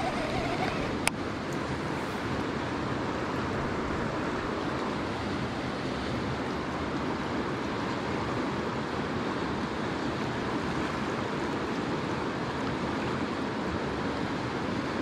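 Steady rush of river water, with a single sharp click about a second in.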